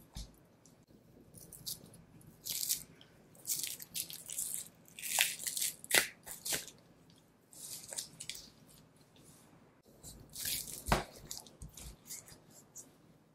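Knife cutting and scraping fat and sinew from a block of Kuroge Wagyu beef knuckle, in irregular crisp strokes, with two sharp knocks partway through.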